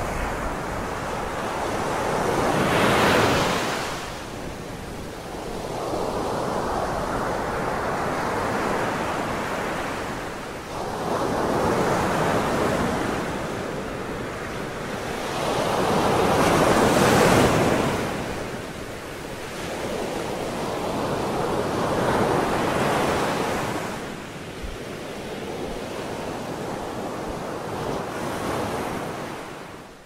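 Ocean surf breaking on a sandy beach, the roar of each wave swelling and ebbing as it washes up the shore, about six surges with the loudest around the middle.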